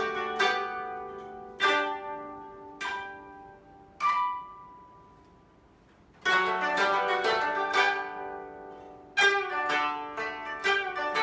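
Koto ensemble playing plucked notes. A few single notes ring out and die away, then a short hush falls about five seconds in. About a second later the kotos come back in together with quick runs of plucked notes.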